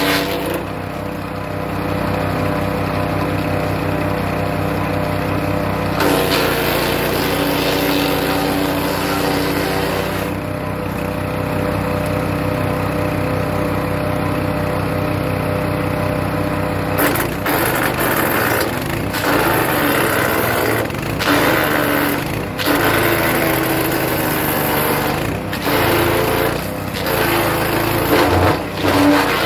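Hecht 6208 wood chipper with a small engine running steadily. From a little past halfway, birch is being chipped: irregular crackling and cracking over the engine, whose note wavers under the load.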